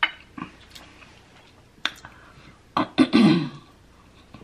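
Close-miked mouth sounds of eating: a few sharp lip smacks and clicks, spaced out. The loudest, about three seconds in, is a smack with a brief hum as fingers are sucked clean of sauce and Cheetos coating.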